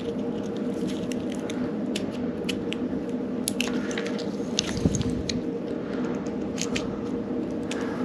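Small, scattered clicks and ticks of needle-nose pliers working a plastic BOA lacing dial as the old broken cable is threaded back out through it. A dull knock comes about five seconds in, over a steady low hum.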